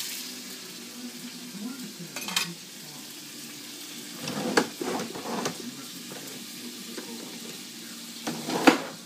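Sliced hot dogs sizzling in hot popcorn oil in a frying pan, loudest just as they go in and then settling to a steady sizzle. A few knocks and clatters of the pan and utensils come through, the sharpest near the end.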